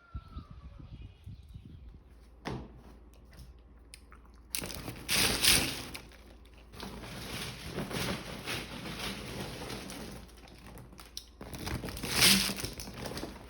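Crinkly rustling and crunching of dry material being handled, with a short sharp rustle about two and a half seconds in and louder bursts about five and twelve seconds in.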